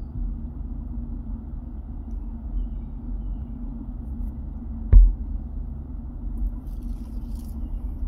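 Steady low background rumble with a faint steady hum, and a single sharp thump about five seconds in.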